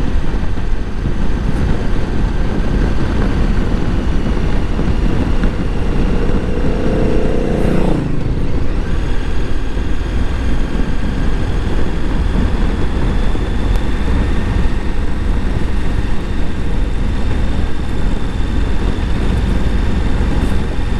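KTM 1290 Super Adventure S's V-twin engine under way, with a heavy rush of wind on the microphone. About six seconds in, the engine note climbs under throttle, then breaks off sharply about two seconds later.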